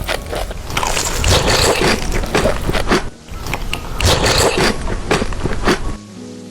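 Close, loud crunching and biting of crunchy food in a quick, irregular run of crisp bites, with a short pause about halfway through.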